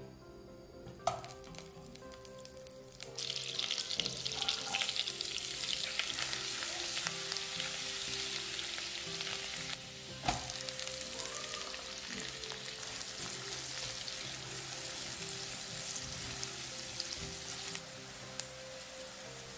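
Food frying in a hot pan. A metal clink comes about a second in, then a sizzle starts suddenly about three seconds in and keeps going, with another knock about halfway through. The sizzle eases a little near the end.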